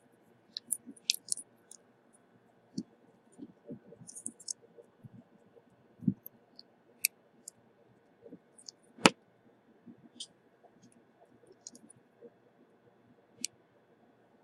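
Scattered small clicks and taps of tools and parts being handled on a repair bench, irregular, with one sharper click about nine seconds in.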